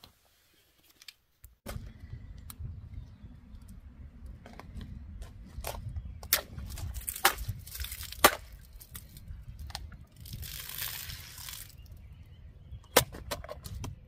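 Low wind rumble on the microphone with scattered taps and clicks as a Victorinox Yeoman pocketknife is struck at a plastic water bottle. About ten seconds in there is a brief hiss of water spilling out, and near the end a sharp knock as the blade is stabbed into a wooden beam.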